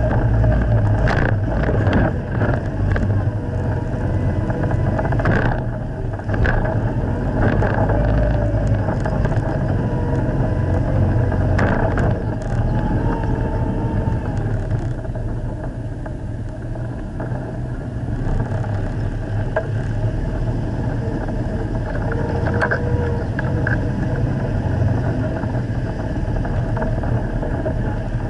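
Steyr-Puch Haflinger's air-cooled flat-twin engine running under load as the vehicle drives over a rough, rutted dirt track, heard from on board. Short knocks and rattles from the bumps punctuate the engine, which eases off somewhat midway and then picks up again.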